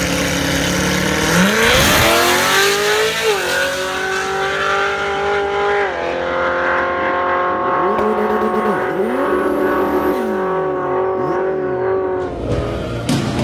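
The nitrous-fed 7.0-litre LS7 V8 of a C6 Corvette Z06 launching hard down a drag strip. The engine note climbs steeply, drops at a gear change about three seconds in and again about six seconds in, then holds a steady note as the car runs away down the track. The sound changes abruptly near the end.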